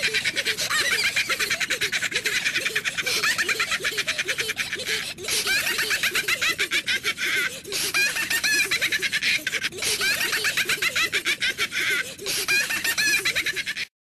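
Rapid, high-pitched gibberish chattering and giggling in the voice of the ZooZoo characters from the Vodafone ads, with a few brief breaks, cutting off suddenly near the end.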